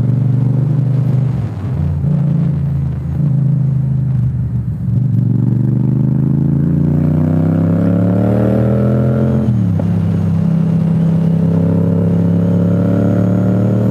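Motorcycle engine heard from on board while riding. The note holds fairly steady, then rises for several seconds under acceleration and drops sharply with an upshift about ten seconds in, before holding steady again.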